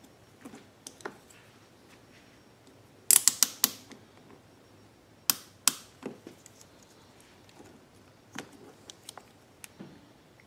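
Hose clamps on a rubber fuel hose beside an inline fuel filter being squeezed tight with pliers, clicking sharply. There is a quick run of clicks about three seconds in, two more a couple of seconds later, and a few lighter ones near the end.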